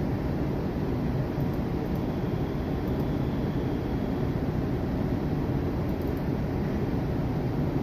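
Steady low rumble and hiss of machinery and ventilation, the constant room noise aboard a ship under way.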